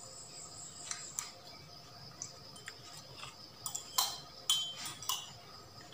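Scattered light plastic clicks and taps from a Sony HDR-CX405 camcorder being handled as its flip-out screen is swung open and shut, with a cluster of sharper clicks about four seconds in.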